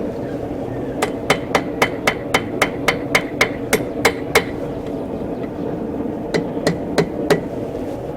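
Blacksmith's hammer striking a steel bar on an anvil while bending the second end of an S hook, each blow ringing sharply. A quick run of about a dozen blows, roughly four a second, is followed by a pause and then four more blows.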